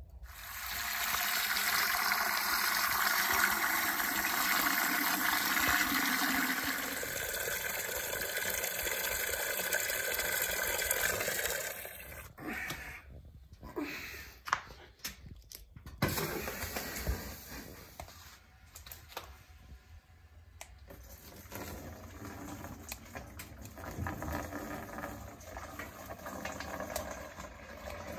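Water being poured: a steady gushing pour for about the first twelve seconds that then stops, followed by a few sharp metal knocks of a ladle and quieter splashing as hot water is ladled into plastic jerry cans.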